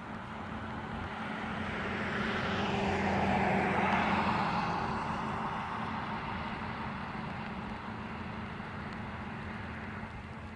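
A vehicle passing by, its noise rising to a peak about four seconds in and then fading away.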